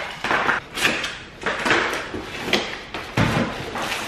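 Cardboard shipping box for a Dyson cordless vacuum being opened and unpacked: flaps pulled back and cardboard and packaging scraping and rustling in a series of short strokes, with a dull thump about three seconds in.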